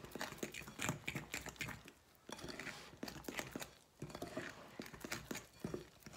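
A utensil stirring flour into mashed banana batter in a glass mixing bowl, clicking and scraping against the glass in irregular strokes with two brief pauses.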